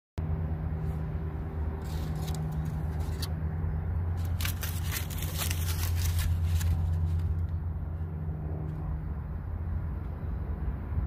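Aluminium foil wrapped round a small package crinkling and crackling in a hand, in two spells of sharp crackles, about two seconds in and again from about four to seven seconds. A steady low rumble runs underneath throughout.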